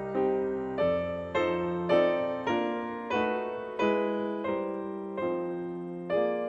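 Background piano music: a slow, even run of chords, one struck about every two-thirds of a second, each fading before the next.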